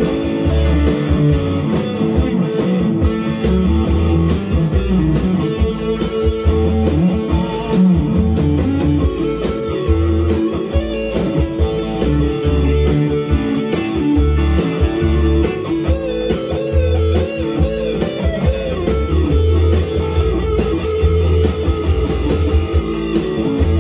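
Harley Benton TE-30 Telecaster-style electric guitar played through an amplifier, picked single notes and chords, with a low bass line running underneath.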